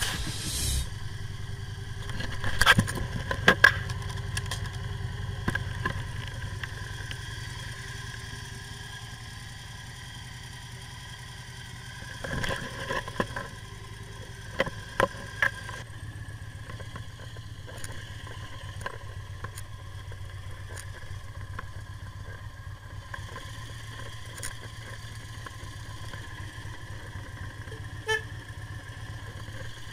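Victory V92C's V-twin engine idling steadily, with a few scattered clicks and knocks about three seconds in and again around twelve to fifteen seconds in.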